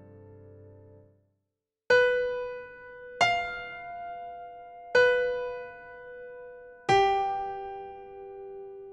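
Background music of slow solo piano. A held chord fades out in the first second, and after a brief silence single notes are struck one at a time, four in all, each left to ring and die away.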